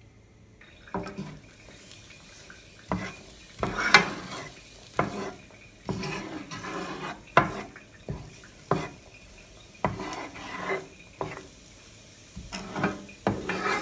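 Wooden spoon stirring and scraping diced onion and parsley around a nonstick frying pan, with irregular knocks and scrapes about once a second. Under them is a faint sizzle of the onion starting to sauté in hot oil.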